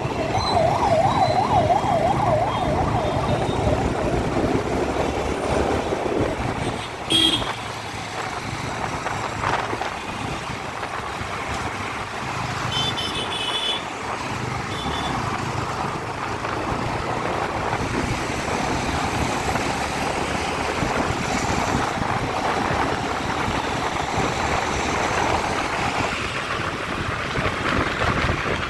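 An emergency-vehicle siren wailing in quick up-and-down sweeps for the first few seconds, then fading. Steady road traffic noise runs underneath, with a sharp knock and a short high beep partway through.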